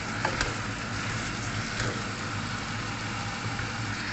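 Chicken and potatoes sizzling in a nearly dry pan: a steady hiss with a low hum under it and a few light clicks.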